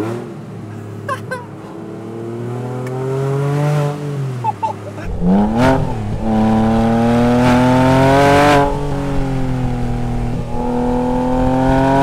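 Porsche 997 Carrera S's 3.8-litre flat-six running through a straight-piped exhaust, its mufflers replaced by bypass pipes. The engine note is loud and climbs in pitch three times, dropping back between each pull.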